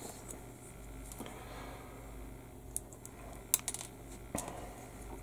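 Small plastic model-kit parts and sprue being handled on a cutting mat: a few light clicks and taps, the sharpest about three and a half seconds in.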